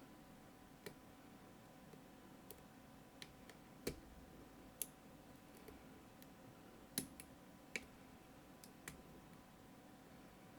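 Faint, irregular small clicks of a lock pick working the pins and rotors of a Mottura CP6 dimple lock, with two louder clicks about four and seven seconds in.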